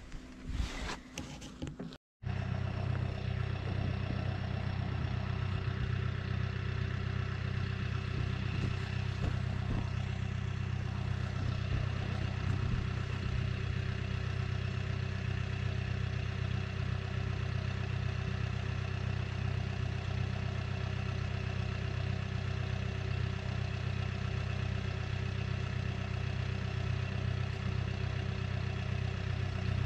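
A couple of seconds of irregular knocks, then the engine of a Trackless MT6 sidewalk tractor running steadily at a constant speed.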